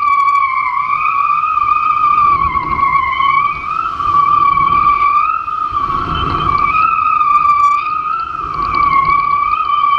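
A steady high whine that wavers slightly in pitch, with gusts of wind and water rush on the microphone swelling several times.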